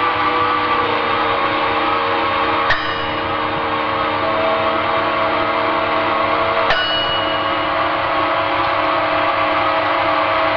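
Dark ambient drone music: dense layered held tones over a steady hiss, with two sharp struck hits about four seconds apart that ring briefly.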